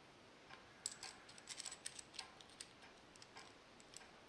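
Faint, irregular light metallic clicks of small steel parts being handled: the clutch wheel and its ring from a Fichtel & Sachs Pentasport five-speed hub being fitted together by hand. The clicks start about a second in.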